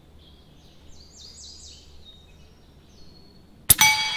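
Small birds chirping in quick, falling calls, then about three and a half seconds in a single sharp shot from a .30 calibre Umarex Gauntlet PCP air rifle, followed at once by the steel dueling-tree paddle ringing.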